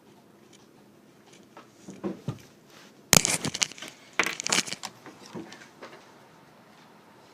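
Crackling, rustling handling noise close to the microphone, in two loud bursts about three and four seconds in, with smaller crackles before and after, over a faint steady hiss.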